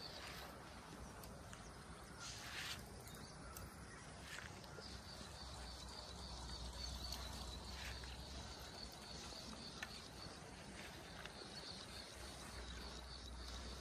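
Quiet rural outdoor ambience with a faint, steady, high-pitched chirping in the background and a few short soft clicks.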